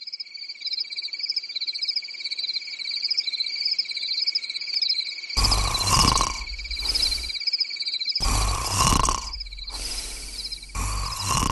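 Crickets chirping in a steady, pulsing night chorus. About halfway through, a sleeping man's loud snoring joins in, each long snore lasting a second or two and coming every couple of seconds.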